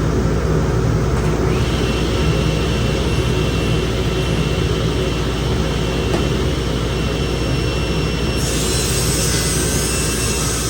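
A power tool's motor running steadily and loudly, with no pause.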